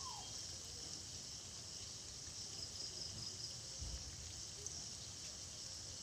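Banana fritters deep-frying in hot oil in a kadai: a faint, steady sizzle.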